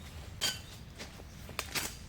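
A few short clicks and knocks of things being handled, the first with a brief squeaky ring, over a low steady background rumble.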